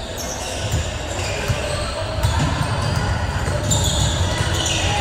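A basketball bouncing on a hard court floor during play, with a few sharp knocks over a steady background of game noise.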